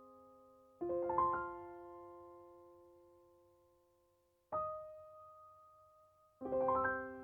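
Background music: slow piano chords, three in all, each left to ring and fade.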